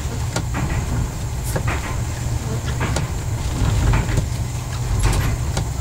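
Running noise in the cab of a Y1 railcar rebuilt with Volvo bus diesel engines: a steady low engine drone, with irregular sharp clicks and rattles over it.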